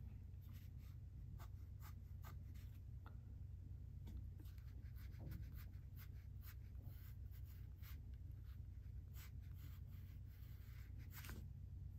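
Faint scratching of drawing strokes on paper, many short lines in quick succession over a low steady hum.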